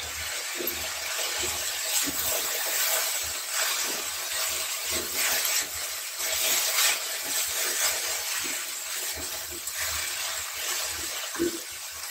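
Diced apple frying in ghee in a metal kadhai, sizzling steadily, while a silicone spatula stirs and scrapes the pieces around the pan in irregular strokes.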